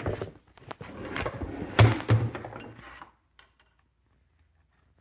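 A chainsaw being handled and turned around on a work surface: a run of knocks and scrapes that stops about three seconds in.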